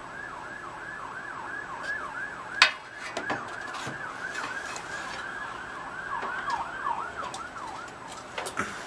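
A steady run of high, squeaky chirps, three or four a second, while a small engine is lowered by hand into a go-kart's steel frame. A sharp metal knock comes about two and a half seconds in, and two lighter clunks near the end as the engine is set down.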